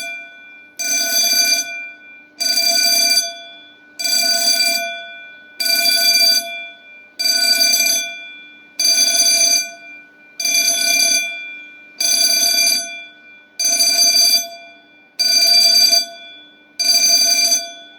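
Cooper Fulleon/Eaton solenoid fire bell ringing as an alarm in an even pulsed pattern: about a second of ringing, then a short pause in which the ring dies away, repeating roughly every 1.6 seconds.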